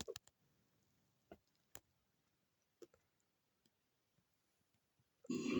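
A few faint clicks in near quiet, then a loud, rough burp begins near the end.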